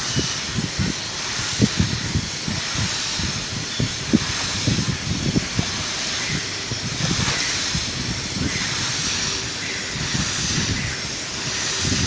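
Polyurethane foam spray gun hissing steadily as it sprays insulating foam, with an irregular low rumble underneath.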